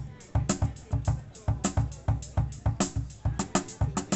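A wooden cajón drum kit played as a steady groove with brush sticks: deep thumps from the bass cajón under sharper strokes on the snare cajón and tom, several strokes a second.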